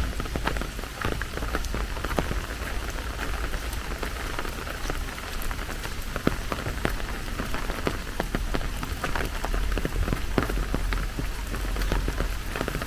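Steady rain, with many separate drops ticking sharply and close by over a continuous hiss.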